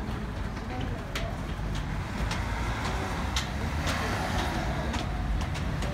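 Interior of a Seoul Line 4 subway train pulling out of a station: a steady low rumble with scattered sharp clicks, growing a little louder from about two seconds in as it gathers speed.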